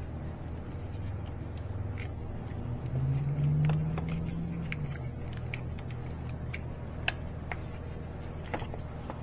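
Scattered light metallic clicks and taps of hand tools working on a car's starter bolts, over a steady low hum, with a low drone swelling for a couple of seconds in the middle.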